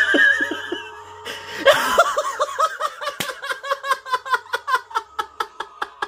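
A man laughing hard in a long run of quick, evenly repeated "ha" bursts that starts about two seconds in and slows toward the end. It follows the tail of a shrill yell.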